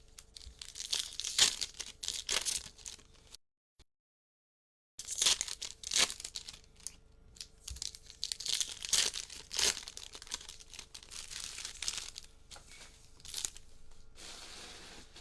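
Plastic wrapping and foil trading-card packs being torn open and crinkled in irregular bursts, with a dead silent gap of about a second and a half near the start.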